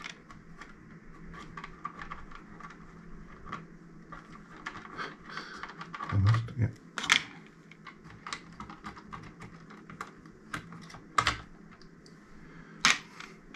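Irregular small clicks and taps of hands working a CD player's transport mechanism loose from its mounting frame, small parts knocking against each other, with a few louder knocks.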